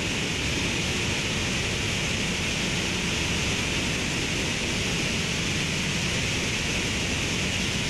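Student-built Venom liquid-propellant rocket engine firing in a static hotfire test: a steady, unbroken rush of exhaust noise that does not change through the firing.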